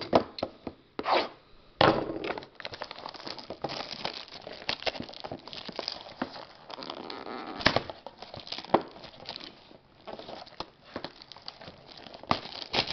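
Plastic shrink-wrap being picked at and torn off a box of trading cards: crackling, crinkling plastic with many small clicks and a few louder sharp snaps.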